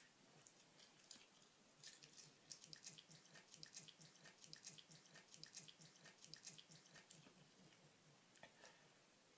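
Faint wet chewing and mouth clicks from someone biting into and chewing a raw red chili pepper. A quick run of small clicks starts about two seconds in and thins out near the end.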